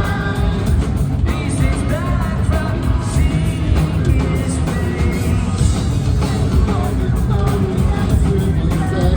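Live rock band playing at full volume, with sung vocals over guitars, bass and drums, heavily loud in the low end as recorded from the crowd.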